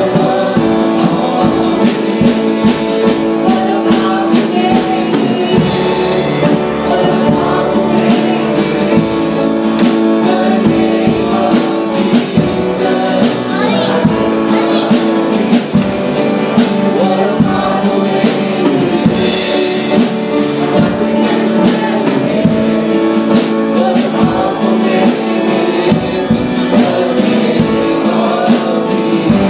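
Live worship band playing with singing, on guitar and drum kit with a steady beat.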